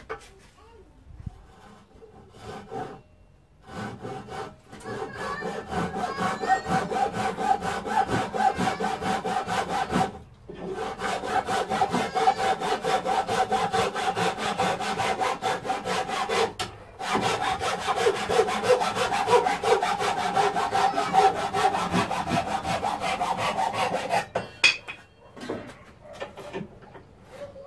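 Handsaw cutting through pallet wood with quick, steady back-and-forth strokes, in three bouts separated by two brief pauses. A few knocks of the wood being handled come before the sawing starts.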